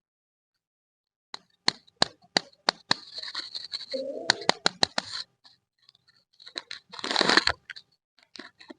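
Plastic candy wrapper being handled and torn open: a run of sharp crackles and crinkling, then a short tearing rasp about seven seconds in, and a few small crackles after.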